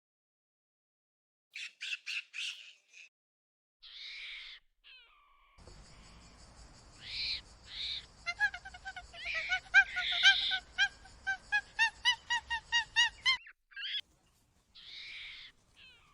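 High-pitched animal calls: a few short harsh squawks, then a quick run of rising chirps, about four a second, over a faint hiss, ending abruptly after about thirteen seconds.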